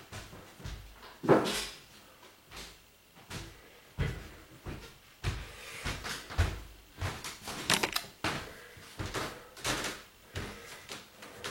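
A run of irregular knocks and clatters, one or two a second, the loudest about a second in.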